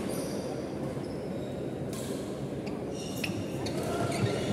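Badminton rally: sharp racket-on-shuttlecock hits that come more often in the second half, the loudest right at the end, with short shoe squeaks on the wooden court and a steady murmur of the hall behind.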